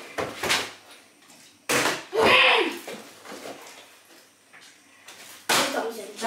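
Plastic water bottle being flipped and landing with a thud on the kitchen worktop, once about two seconds in and again near the end, where it tips over onto its side. A short voiced exclamation follows the first landing.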